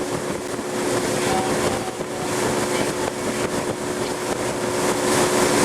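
Boat engine running steadily as the boat moves, a constant hum under a rushing hiss of wind and water.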